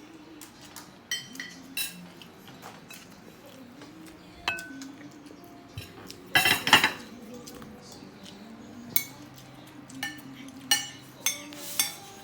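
Cutlery clinking against a plate while eating, with scattered sharp clinks and a louder clatter about six seconds in.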